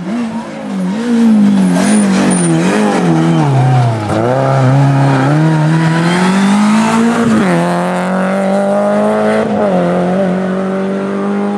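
Renault Clio rally car's four-cylinder engine at full effort. The revs drop and wobble through downshifts as it brakes into a tight bend, then climb steadily as it accelerates out. There is a gear change about seven and a half seconds in, then the revs rise again as it pulls away.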